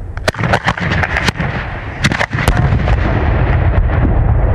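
Fireworks going off: a quick string of sharp cracks and bangs over about two and a half seconds, then a loud, continuous rush of noise.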